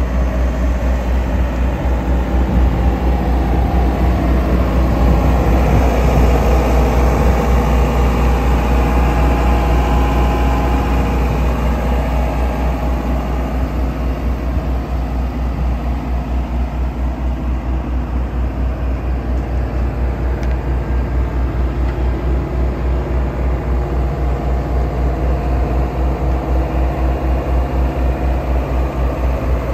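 Wacker G70 trailer-mounted diesel generator running at a steady speed: a low, even drone with a fast regular throb, a little quieter from about twelve seconds in.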